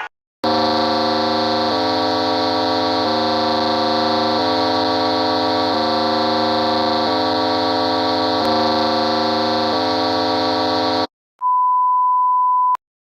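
Electronic emergency-alert alarm tone: a loud, buzzy chord of steady tones that switches back and forth between two pitches every one to two seconds for about ten seconds, then stops. After a brief gap, a single pure beep near 1 kHz sounds for just over a second.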